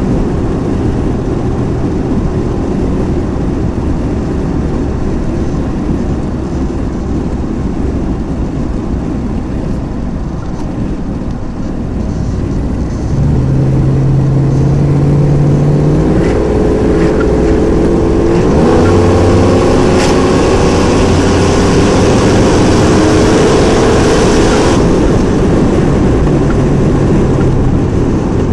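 Engine and road noise inside the cabin of a turbocharged car driving at highway speed. About halfway through, the car accelerates: a rising engine note and a high hiss build for several seconds, then the hiss cuts off shortly before the end.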